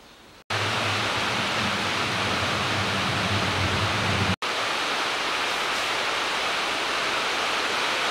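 Loud, steady hiss like rushing air or wind noise, starting abruptly about half a second in. A low hum sits under it for the first few seconds, and a split-second dropout comes about four seconds in.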